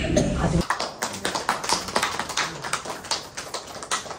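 Footsteps of several people walking on a hard floor: a quick run of light taps and clicks. A voice is heard briefly at the start.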